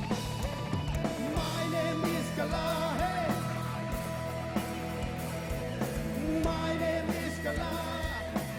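A live rock band playing, with drums, bass and electric guitar, and some singing.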